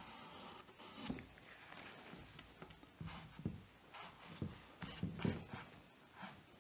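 Paintbrush brushing acrylic paint onto canvas: faint, soft strokes at an uneven pace, a handful of them over a few seconds.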